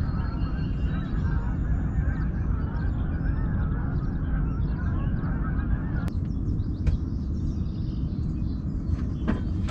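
A flock of geese honking over a steady low rumble; the calling stops about six seconds in.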